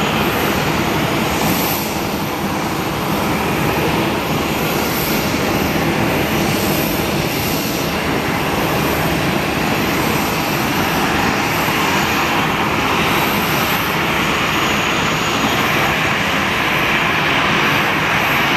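An Airbus A320-216's twin CFM56 turbofan engines running steadily at low taxi power as the airliner taxis after landing: a continuous jet rush and rumble.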